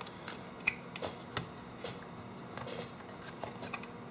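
Small plastic blood pressure monitor casing being handled and fitted back together: a series of short, sharp clicks and taps with light rubbing between them.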